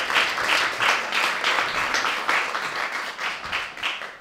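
Audience applauding, the claps fairly even at about four a second, dying away near the end.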